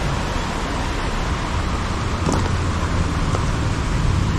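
Yamaha Serow 250 motorcycle's air-cooled single-cylinder engine running steadily under a loud, even rushing noise.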